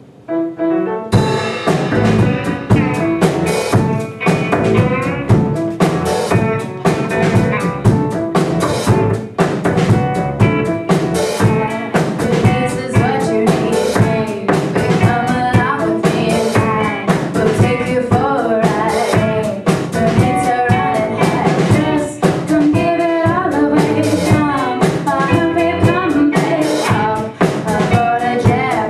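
A live band starts playing about a second in: drum kit, electric guitar, bass guitar and piano, with a woman singing lead.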